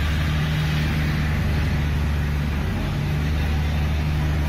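Passenger ferry's engine running steadily under way, a low, even hum heard from on board.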